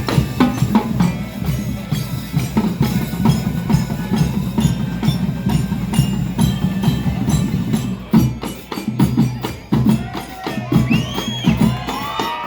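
School marching band playing, led by drums and other percussion beating a steady rhythm. About eight seconds in, the beat thins to separate strokes with short gaps.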